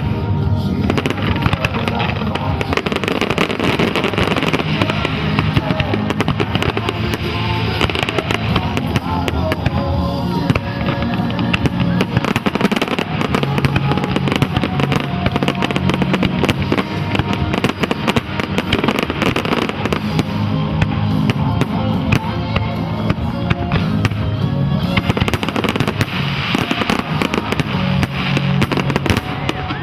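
Fireworks display going off continuously: a dense stream of bangs, pops and crackles, many per second, over loud accompanying music with a steady bass line.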